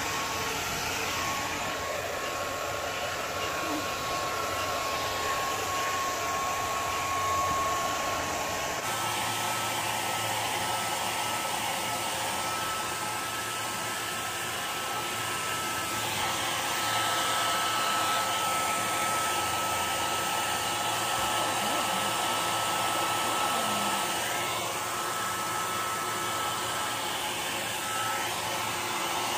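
Handheld hair dryer with a comb nozzle blowing steadily over a wet dog's coat, a steady rushing of air with a thin whine that steps slightly higher about nine seconds in.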